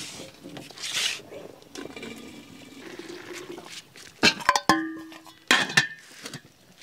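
Water rushing and splashing into an aluminium steamer pot. About four seconds in, a quick run of sharp metallic clanks and clinks follows, then a couple more, as the pot's aluminium lid is handled and set on.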